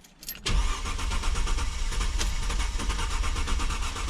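Starter cranking the Mercedes-Benz C240's 2.6-litre M112 V6 in a steady, fast rhythm, starting about half a second in, without the engine catching. This is a crank-no-start, which the owner traced to a failed ignition coil fuse (no. 48).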